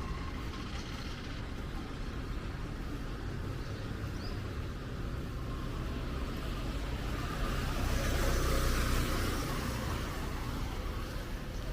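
Street traffic with a steady low rumble; a vehicle passes about eight seconds in, its tyres hissing on the wet road as it swells and fades.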